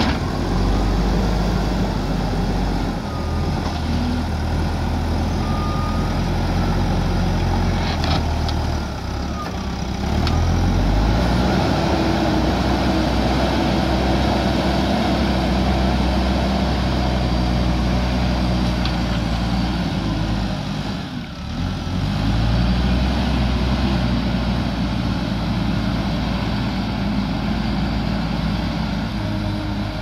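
JCB 3DX backhoe loader's diesel engine running under load as the front bucket pushes and carries soil. The engine speed rises and falls as it works, with a brief dip about two-thirds of the way through.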